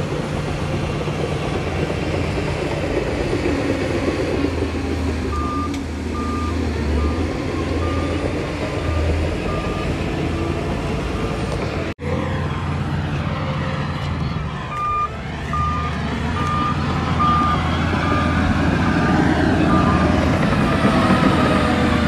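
Heavy diesel earthmoving machinery running steadily, with a vehicle reversing alarm beeping about every 0.7 seconds in two stretches, one before the middle and one after it, the first fading as it goes. The sound cuts out for an instant near the middle.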